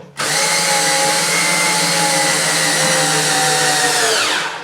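Cordless drill/driver running steadily for about four seconds while driving a screw into cement backer board, on a battery that is nearly flat, then winding down in pitch as the trigger is released near the end.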